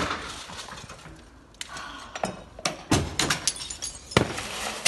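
Window glass cracking and breaking in the heat of a house fire: a series of sharp cracks and pops, one right at the start, then a cluster from about halfway in.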